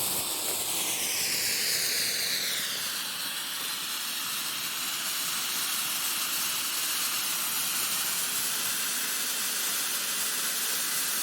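Cone fountain firework spraying sparks with a steady hiss; a whistling tone within it slides down in pitch over the first few seconds, then holds steady.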